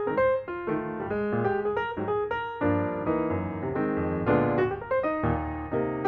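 Background music on piano: single notes in a steady run, fuller chords from about halfway.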